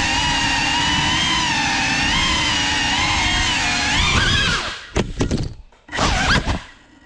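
GEPRC CineLog35 cinewhoop FPV drone's motors and ducted props whining steadily, the pitch wavering up and down with throttle. About 5 and 6 seconds in come two short throttle bursts with a rising whine, then the motors cut out as the drone sets down.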